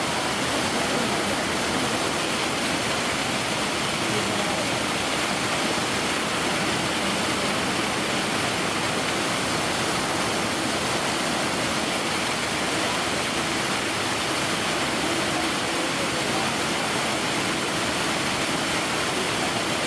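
Steady rush of flowing water, an even hiss that does not change.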